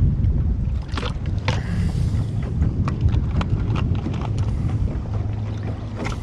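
Wind rumbling on the microphone over a low steady hum, with scattered sharp clicks and knocks of handling gear on the boat.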